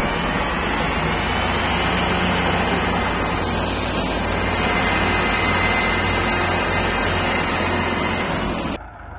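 Diesel engines of a Massey Ferguson 375 and a 240 tractor running hard together under heavy load, hauling a sugarcane-loaded trolley through sand. The engine noise is loud and steady, then cuts off suddenly near the end.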